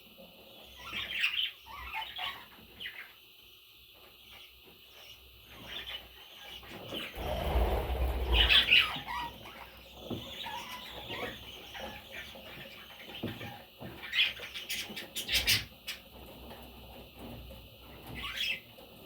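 Pet parrots chirping in short calls, with a louder stretch of rustling and wing flapping in the middle and a few sharp clicks later on.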